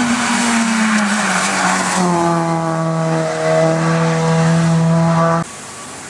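Hillclimb race car engine running hard at high revs, its pitch sinking slightly before holding steady, with tyre squeal in the first couple of seconds. The sound cuts off suddenly near the end.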